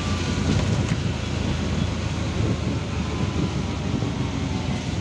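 Auto-rickshaw on the move, heard from inside its open-sided cabin: a steady engine drone with road and wind noise.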